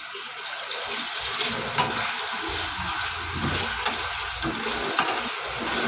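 Paneer cubes frying in oil in a pan: a steady sizzle with scattered small pops.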